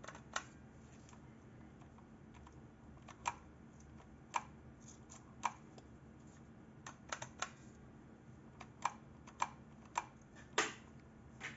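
Praktica film SLR camera's mechanism clicking as it is worked by hand: about a dozen sharp, separate clicks, mostly a second or so apart, with a quick run of three partway through and the loudest, slightly longer click near the end.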